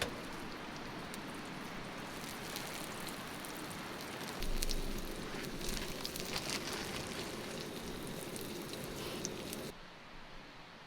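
Butter browning in a frying pan, sizzling with a steady hiss and small crackles. It swells louder for about a second around the middle and cuts off sharply near the end.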